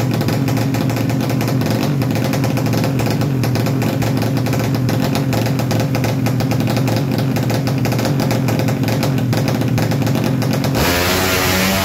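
Open-exhaust four-stroke underbone drag motorcycle engine (Bebek 4T class, up to 200 cc) running at steady held revs on the start line, a constant drone with no rise or fall. About a second before the end the sound changes abruptly to a different, wavering sound.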